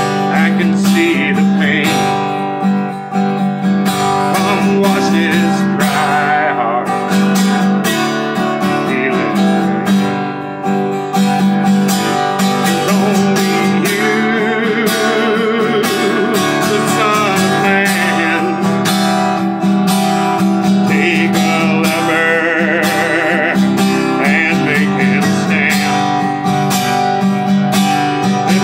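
Taylor acoustic guitar strummed steadily, with a man singing along.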